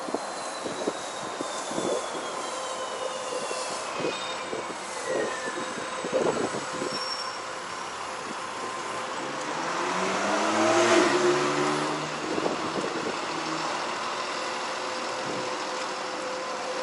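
Street traffic, with a large vehicle passing close about ten seconds in, its engine note dropping in pitch as it goes by. A high whine glides down in pitch over the first few seconds.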